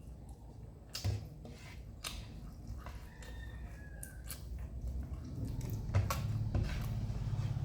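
A person chewing a mouthful of rice and fried bottle-gourd peel, with scattered small mouth clicks.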